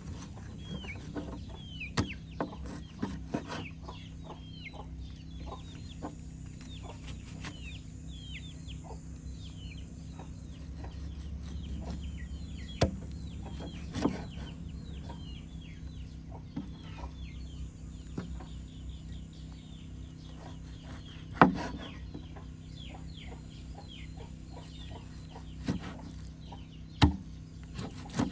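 Chickens calling: many short, falling cheeps all through, with scattered sharp knocks, the loudest about 21 seconds in.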